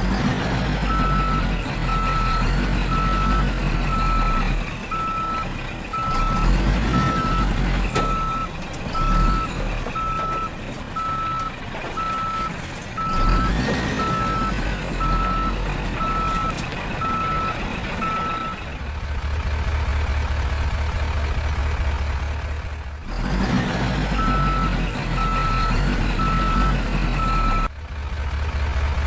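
A vehicle's reversing alarm beeps steadily at one pitch, about once a second, over a low engine drone. The beeping stops about two-thirds of the way through while the engine carries on, then returns briefly near the end.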